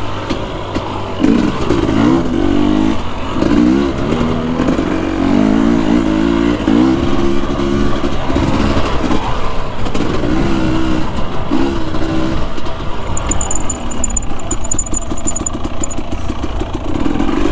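Husqvarna TE250i two-stroke dirt bike engine revving up and down over and over, its pitch climbing and dropping as the rider works the throttle on the trail.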